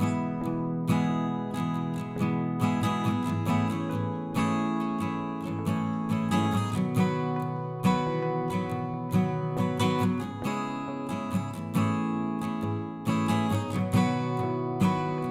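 Background music: acoustic guitar being plucked and strummed at a calm, steady pace.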